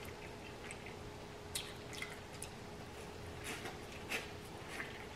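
Faint wet eating sounds: fingers lifting saucy seafood-boil food from the bowl and a mouthful bitten and chewed, heard as a few scattered squishy smacks and drips.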